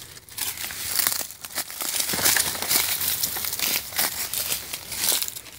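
Footsteps through dry leaf litter on a woodland floor: an uneven run of rustling crunches.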